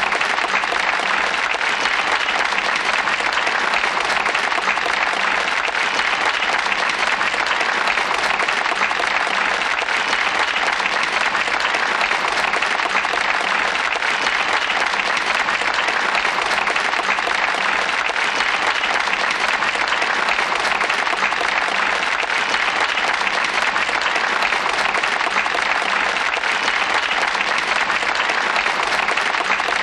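A crowd applauding: dense, continuous clapping at an even level throughout, without swells or pauses.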